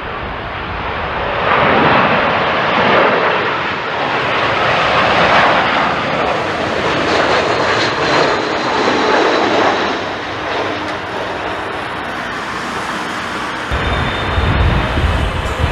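Jet airliner's engines heard close by, a loud rushing noise that swells about a second and a half in and stays strong. A deep low rumble comes in near the end.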